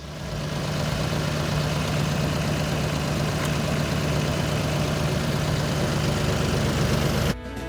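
An engine running steadily at idle with a low hum, cut off abruptly near the end.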